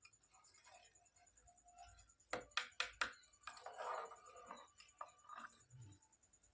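Faint clicks and taps: four sharp clicks in quick succession about two and a half seconds in, followed by a soft rustle.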